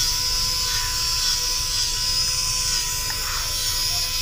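Small jewellery engraving machine running steadily, with an even hum and whine under a high hiss, as it cuts a decorative pattern into silver bangles.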